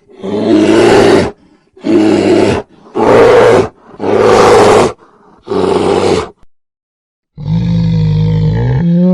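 Bear growling: five rough growls of about a second each with short gaps between them, then after a pause of about a second a longer, more tonal growl that rises in pitch near the end.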